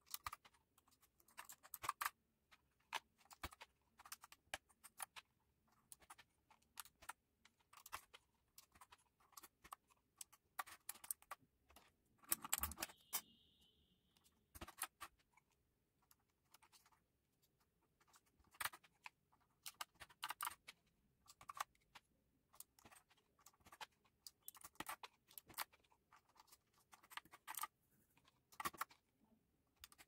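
Keys clicking and clacking on a Redgear Shadow Blade mechanical keyboard, in irregular clusters of strokes with short pauses between them. There is a louder clatter about twelve seconds in.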